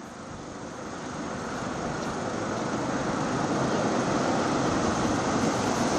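Agusta AW139 helicopter's twin turbine engines and rotors running while it sits on the ground before lift-off. The sound grows steadily louder over the first three seconds, then holds steady.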